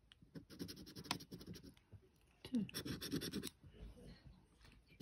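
A round scratcher disc scraping the coating off a paper scratchcard in fast, rapid strokes, in two spells: one starting about half a second in, and a louder one around the middle.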